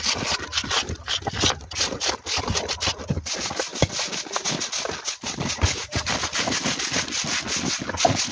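Mortar being worked on a fresh brick wall. A trowel scrapes along the joints, then a stiff stick broom rubs and brushes over the brickwork to finish the joints, in quick repeated strokes.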